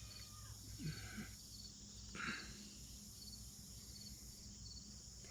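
Crickets chirping steadily in the background, with a few faint brief rustles about one and two seconds in.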